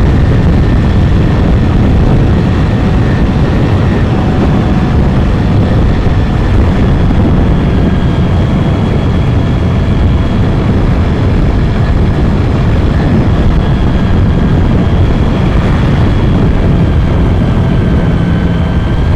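Steady, loud rush of wind and road noise on the microphone of a motorcycle riding at speed, with the engine running underneath.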